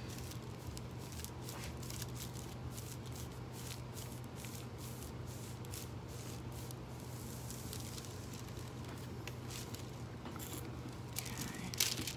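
Faint crinkling and rustling of a thin metallic transfer foil sheet as a household iron is pressed and slid over it, over a steady low hum. A louder crinkle comes near the end as the foil's edge is handled.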